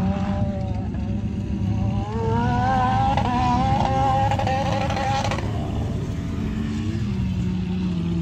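Engines of a side-by-side dune buggy and other off-road vehicles running on the sand. The pitch climbs as one revs up from about two seconds in, drops away after about five seconds, and a lower, steadier engine note carries on near the end.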